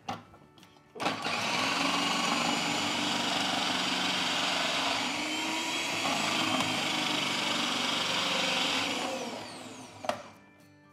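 Philips food processor motor running steadily as it grates courgette through its grating disc, starting about a second in and winding down near the end, followed by a short knock.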